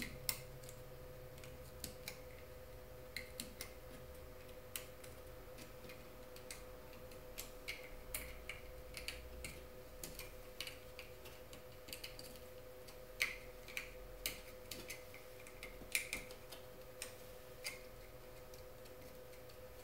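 Small plastic CCFL lamp connectors being pushed onto their sockets on an LCD TV's backlight inverter board: faint, irregular clicks and taps over a faint steady hum.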